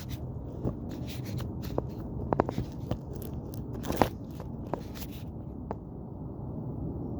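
Scattered clicks, taps and light scrapes from hands working the wires and parts of an outdoor electrical outlet box during wiring, over a steady low background rumble.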